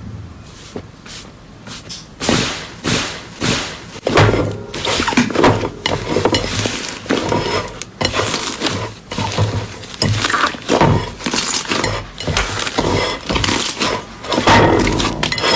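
Slime being squeezed and pressed by hand, giving irregular runs of crunchy crackling about every half second to second, after a quieter first two seconds.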